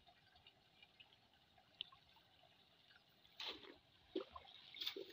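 Water splashing and dripping as a wet cast net is lifted out of shallow river water: near quiet at first, then a few short splashes in the second half.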